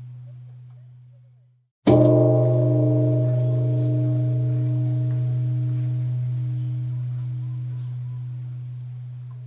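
Buddhist temple bell struck once about two seconds in: a sharp attack, then a deep steady hum with higher ringing tones above it, fading slowly. Just before the strike, the tail of the previous ring dies away.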